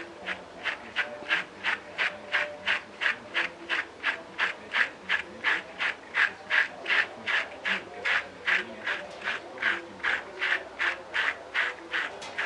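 Slicker brush stroked quickly and rhythmically through a poodle mix's long, knotted coat, about three short scratchy strokes a second. The coat is unwashed and lightly tangled, so the brush drags rather than gliding.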